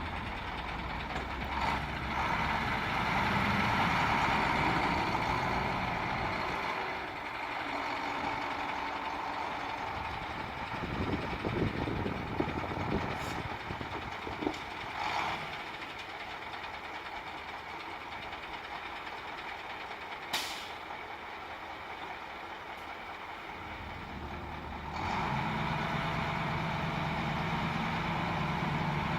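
Heavy diesel machinery running while moving waste, with a few sharp knocks. The engine grows louder and steadier near the end.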